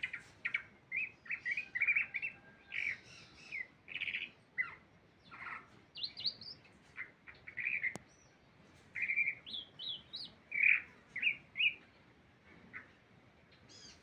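A songbird singing a varied, fast run of short chirps and whistled notes, some rising and some falling, broken by short pauses and thinning out near the end.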